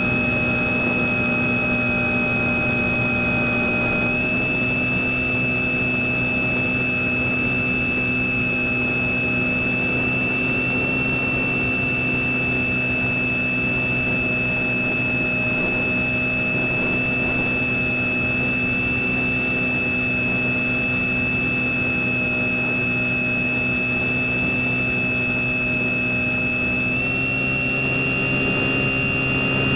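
Skywalker FPV plane's electric motor and propeller running steadily in flight, heard through the onboard camera: a steady high whine and low hum over air noise. The pitch steps up slightly about four seconds in and again near the end, as the throttle changes.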